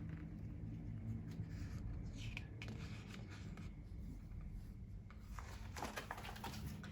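Faint paper rustling from a picture book's pages being handled, in two short spells, over a low steady room hum.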